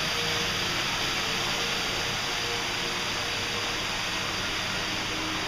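Steady rush of water from an artificial waterfall running down a rock wall.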